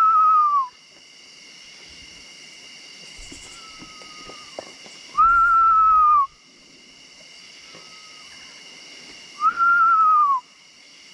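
A man whistles three times, each a clear note about a second long that drops at the end, imitating a bird's call. Between his whistles the bird answers faintly with a similar call. He believes the bird is a mourning dove but is not sure of it.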